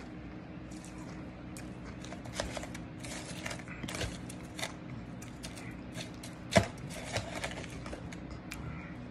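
Shaved ice chunks being handled, making irregular crisp clicks and crackles, with one sharper knock about six and a half seconds in.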